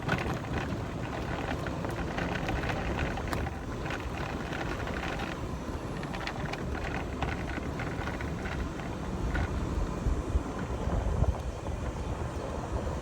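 Golf cart driving, a steady low rumble with small rattles and clicks, with wind buffeting the microphone.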